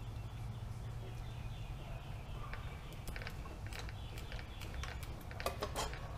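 Engine cylinder head being rocked loose from the cylinder by hand: scattered clicks and gritty scraping of metal, busiest near the end, over a steady low hum.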